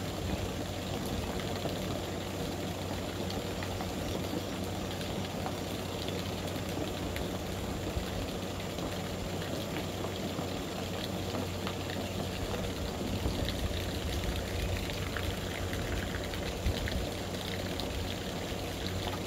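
A stream of water falling steadily onto a sloped sheet-metal panel and splashing off it.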